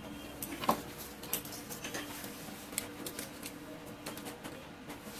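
Scattered small clicks and taps from handling a phone circuit board and test leads on a repair bench, over a faint steady hum.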